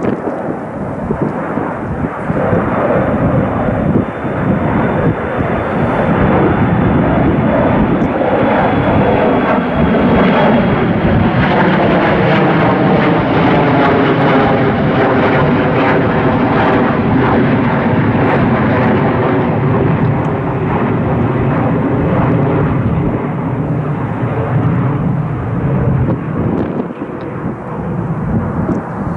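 Jet airliner's engines running loud as it passes: a rushing roar that builds, holds through the middle and fades near the end, with a faint high whine that slowly drops in pitch early on.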